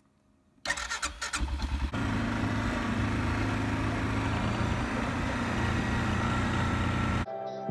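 ATV engine being started, stuttering for about a second and a half before it catches, then running steadily as the quad rides along a trail. The engine sound cuts off abruptly shortly before the end.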